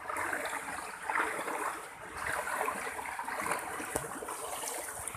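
Floodwater from an overflowing river rushing swiftly past, a steady fluctuating rush with splashing.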